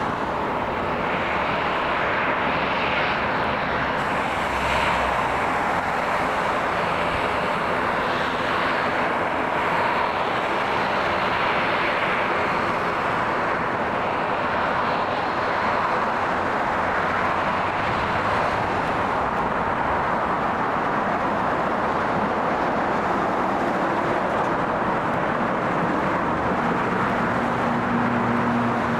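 Airliner engines running with a steady, even noise that holds about the same level throughout.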